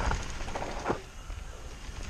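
Mountain bike rolling over a dirt trail: a crackling rush of tyres on loose ground, a few knocks and rattles, with wind rumble on the microphone.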